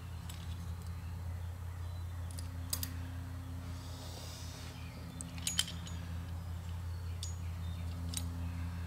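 Light metallic clicks and clinks of small Carter BBD carburetor parts (metering rods and linkage on the carburetor top) being handled and stripped out, a few separate ones with two sharper clicks, over a steady low hum.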